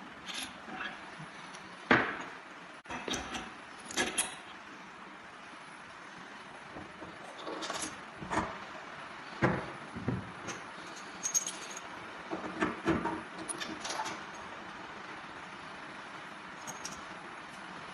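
Scattered, irregular clicks, clinks and knocks of metal parts being handled as the grips (jigs) on a tensile testing machine are changed over. The loudest knock comes about 2 seconds in.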